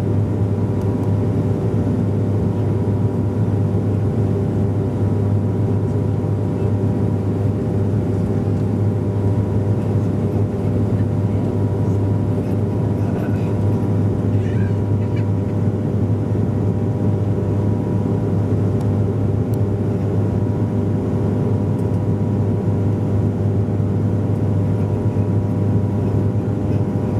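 Steady drone of a Bombardier Q400's turboprop engines and propellers heard inside the cabin on approach with the landing gear down: a strong low propeller hum with steady higher tones above it, unchanging throughout.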